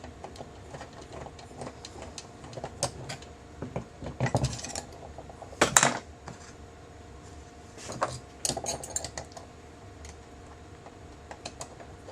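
Small steel parts of a MEC 600 shotshell reloading press clinking and clicking as the top crimp punch is handled and threaded into the press: a scatter of irregular metal taps, the sharpest about six seconds in, over a faint steady hum.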